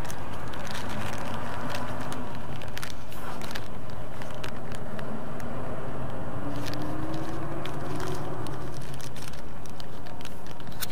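Thin plastic bag crinkling and crackling now and then as it is handled and opened, over a steady low rumble.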